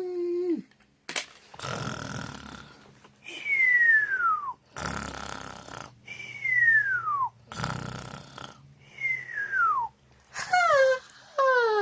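A man's voice imitating cartoon snoring: a rasping snore followed by a falling whistle, three times at an even pace. Near the end come two short falling vocal calls.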